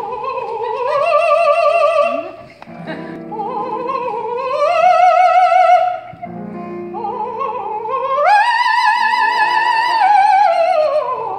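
A male classical singer sings in an operatic style with strong vibrato, in three long held phrases. The last phrase climbs about eight seconds in to a sustained high note and then falls away. A piano accompaniment sounds beneath and between the phrases.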